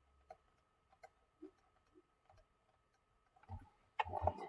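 Faint, scattered taps of writing, a few small clicks spread over the first couple of seconds, then a louder run of scratchy strokes near the end as a label is written.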